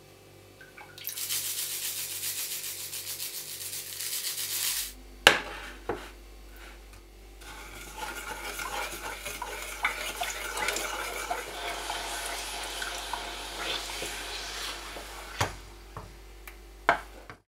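Coconut milk poured in a thin stream into a stainless steel pot, then a sharp knock about five seconds in. After that a wooden spoon stirs and scrapes around the steel pot with scattered small ticks as the palm sugar dissolves in the heating coconut milk, with a couple more knocks of the spoon against the pot near the end.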